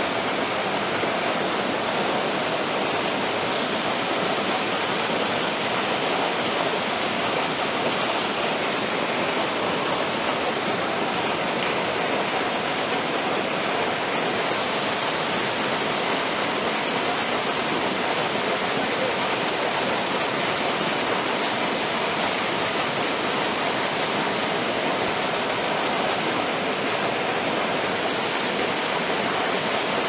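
Waterfall falling into a rock pool: a steady, even rush of water.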